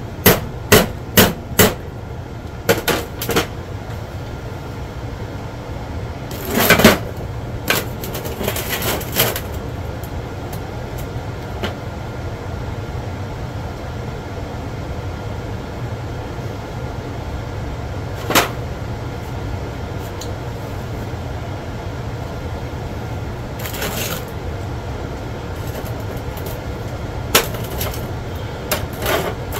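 Ball-peen hammer striking a freshly welded flat steel spring bar lying on a concrete floor: a quick run of sharp blows at the start, then a couple of longer, noisier bursts and scattered single knocks over a steady background hum.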